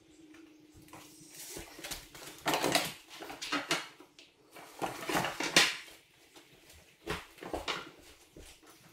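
Wooden boards and tools being handled on top of a kitchen cabinet: irregular clatter and scraping in several short bursts, the loudest about five seconds in.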